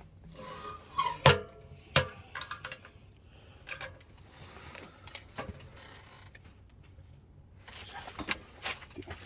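Scattered clinks and knocks of small hard objects being handled, with two louder knocks about a second and two seconds in and a flurry of light clicks near the end.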